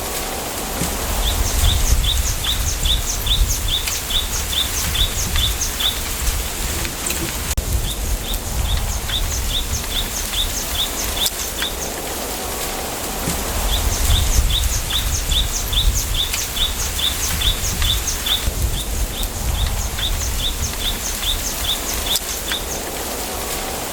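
Bamboo forest ambience: a steady rustle of wind through the bamboo over a low rumble, with a small bird singing runs of short, high, rapidly repeated chirps, a few a second, in bursts of several seconds.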